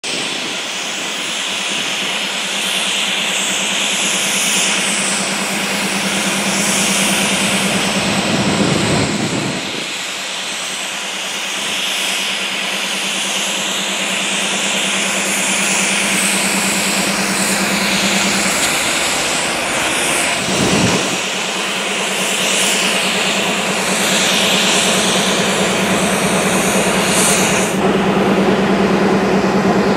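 Union Pacific diesel-electric freight locomotives running as they move past, with a steady engine hum under a dense hiss of wheel and rail noise. Near the end the high hiss drops away, leaving a steady engine drone.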